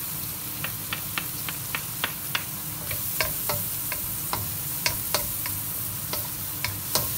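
Diced onion and garlic sizzling in oil in a stainless steel wok, stirred with a wooden spatula that clicks and taps against the pan a few times a second, irregularly.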